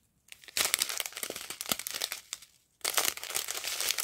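Small clear plastic sachets of round diamond-painting drills crinkling as they are handled, in two stretches with a short break about two and a half seconds in.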